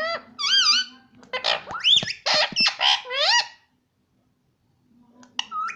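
Parrot giving a run of short, high-pitched calls that swoop up and down in pitch, then breaking off for about a second before calling again near the end.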